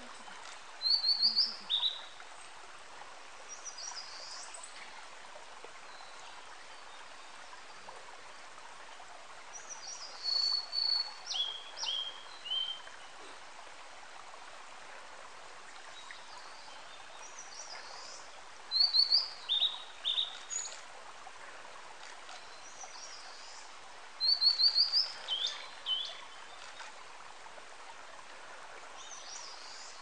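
Male blue-and-white flycatcher singing: short phrases of clear, high whistled notes that step down in pitch, four loud phrases several seconds apart with fainter ones between them. A steady background hiss runs underneath.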